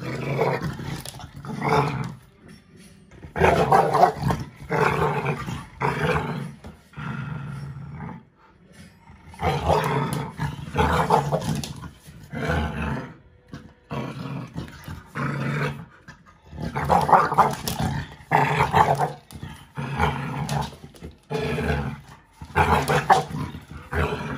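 Two dogs, a five-month-old American Bully puppy and an adult American Staffordshire Terrier, growling in play while tugging on a rubber ring toy. The growls come in many rough bouts of about a second each, with short pauses between them.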